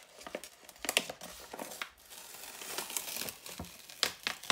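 Plastic wrapping crinkling and paper tearing as a firmly glued cover gift is pulled off a magazine, ripping the cover. There are sharp crackles about a second in and again near the end.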